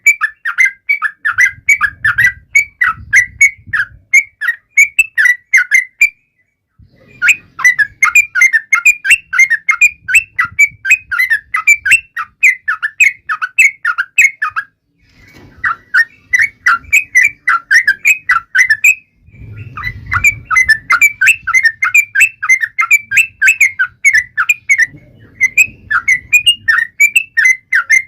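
Yellow-vented bulbul singing in long runs of quick, bubbly chattering notes, several a second, with brief pauses about six, fifteen and nineteen seconds in.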